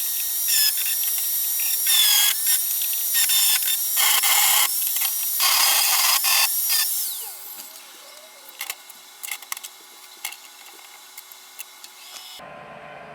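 Handheld power tool working metal, running in several bursts with its whine dipping in pitch under load, and stopping about seven seconds in. A few light knocks follow.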